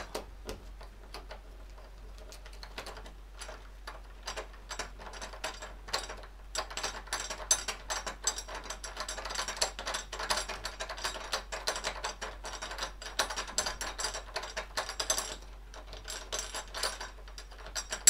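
Metal rose plate of a door knob lockset being twisted and worked off its mounting plate on the spindle: a rapid run of small metal clicks and scrapes, sparse at first and thickest through the middle.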